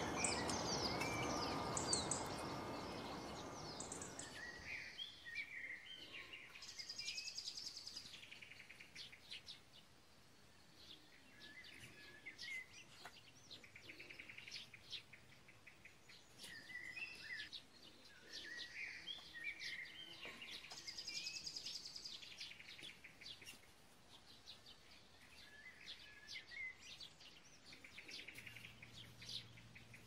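Small songbirds chirping and calling throughout, with a couple of short, fast trills, one about seven seconds in and one about twenty-one seconds in. A rushing noise covers the first few seconds and then fades away.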